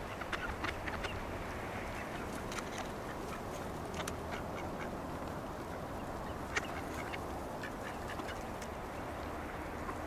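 Mallard ducks quacking in short, scattered calls, several close together in the first second and a sharp one about six and a half seconds in, over a steady low background rumble.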